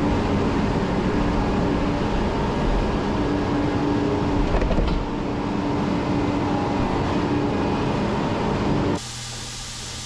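A machine engine runs steadily under a loud hissing noise, the kind heard while barn slats are being cleaned. About nine seconds in it cuts off suddenly to a quieter hiss with a low hum.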